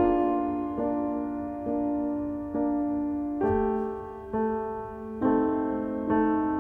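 Slow, gentle background piano music: single notes and chords struck about once a second and left to ring and fade.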